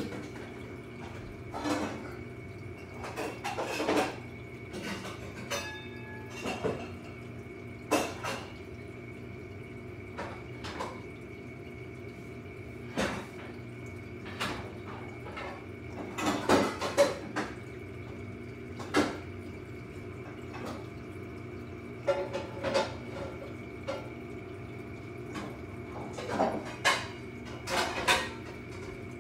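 Steady hum of reef aquarium pumps with a thin high tone running under it, broken by irregular clinks and knocks every second or two.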